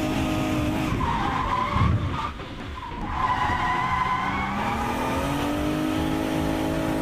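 Drift car's engine held at high revs while its rear tyres squeal and skid as the car slides sideways. The engine note drops briefly about two seconds in, then climbs again a couple of seconds later.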